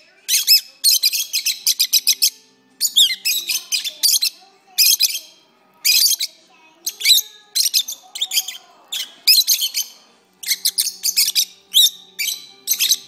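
Peach-faced lovebirds singing: rapid, high-pitched chirping and twittering in about a dozen loud bursts, each up to about a second and a half long, with short pauses between.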